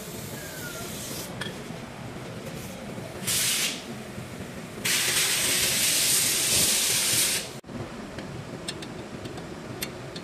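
Two bursts of spray hissing during brake work: a short one about three seconds in, then a louder one of about three seconds that cuts off suddenly. A few light metal clicks follow near the end.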